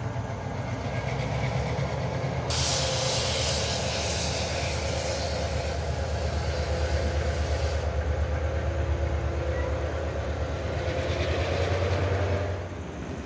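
Diesel-hauled passenger train rolling across a trestle: a steady low rumble with a rhythmic clatter of wheels as the locomotive and then the cars pass. A hiss comes in about two seconds in and stops around eight seconds, and the rumble drops off shortly before the end.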